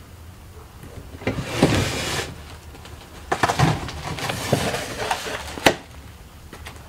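Wooden shipping crate being taken apart by hand: its panels scrape and rattle in two spells as they are worked loose and lifted away, with a sharp knock near the end.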